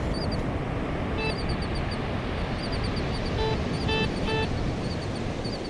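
Steady surf and wind noise, with one short electronic beep about a second in and four quick beeps of the same pitch near the end from a metal detector sounding on a buried target.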